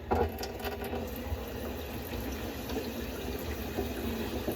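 Water running steadily from a kitchen tap into the sink and down its drain, with a brief knock right at the start.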